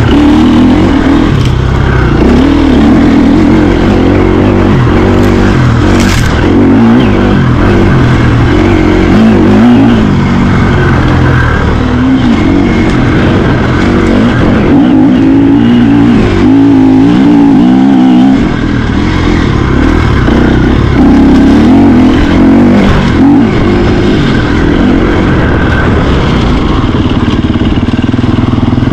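Loud, steady rumble of a mountain bike being ridden, heard through the rider's camera, with a sharp knock about six seconds in.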